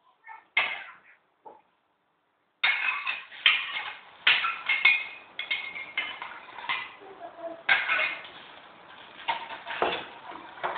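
A utensil clattering and scraping against a saucepan in quick, irregular strokes, as a sauce is stirred. It starts suddenly about two and a half seconds in, after a few brief knocks.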